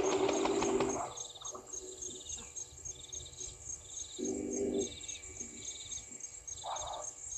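Two harsh, nasal honks of Egyptian geese, one at the start and one about four seconds in, each under a second long. Behind them, insects chirp in a steady high rhythm, about three chirps a second, with a softer trill roughly once a second.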